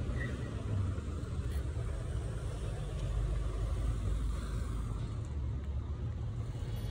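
Outdoor street ambience: a steady low rumble, like traffic noise.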